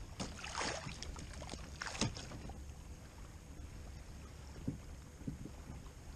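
Low, steady wind rumble on the microphone, with brief rustling handling noises about a quarter second in and again around two seconds, and a couple of faint knocks near the end.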